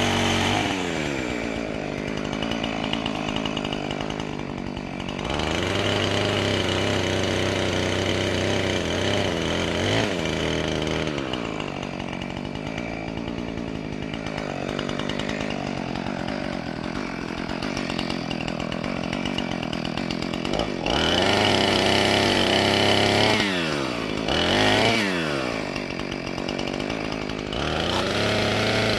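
Two-stroke chainsaw running through oak, revving up to full throttle for cuts and dropping back toward idle between them: the engine falls just after the start, climbs again about five seconds in, eases off around ten seconds, and revs hard again later with a short blip and another climb near the end.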